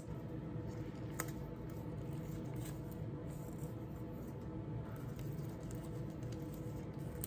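Faint handling noises of hands working plant cuttings into a plastic pot: soft rustles and small clicks, with one sharper tap about a second in, over a steady faint hum.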